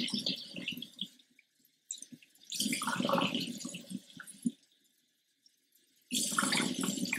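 Tap water running into a narrow-neck glass bottle and splashing out of it into a stainless steel sink as the bottle is rinsed, in three bursts with quiet gaps between.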